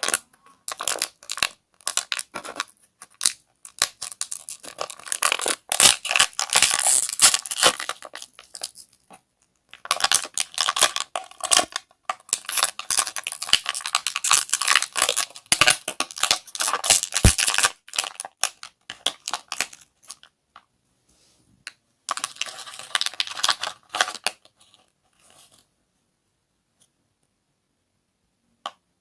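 Close, dense crackling and crunching of brittle, crinkly material being squeezed and handled, in three long bursts of about nine, eight and two seconds, with a single click near the end.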